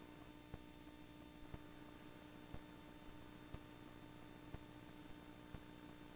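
Near silence: a faint steady hum and hiss, with soft short ticks about once a second.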